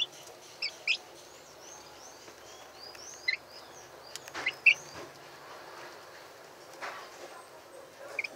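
Young chickens (growing chicks) peeping: short, high cheeps scattered throughout, with a few louder ones about half a second in and around four and a half seconds in, and fainter chirping in between.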